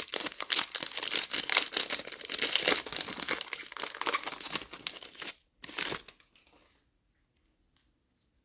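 Trading-card pack wrapper being torn open and crinkled: a dense run of crackling for about five seconds, one more short rustle, then it stops about six seconds in.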